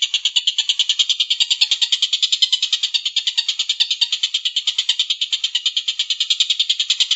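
A bird's rapid, rattling trill, repeated without a break at about eleven pulses a second, high-pitched and steady, played as a birdsong training recording.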